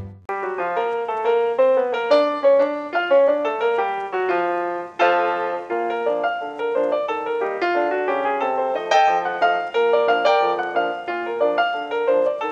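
Piano music: a brisk tune of short, quick notes, starting after a brief break.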